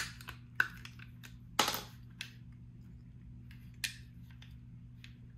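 Metallic clicks from working the slide of a Springfield Armory Hellcat 9mm pistol by hand. There is a sharp click at the start, then a louder clack about a second and a half in as the slide is drawn back and locked open, followed by a few lighter clicks.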